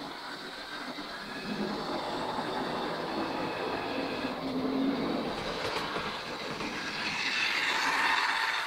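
Model railway train running on the layout track, a steady whirr of motor and wheels that grows louder near the end as the locomotive and coach pass close by.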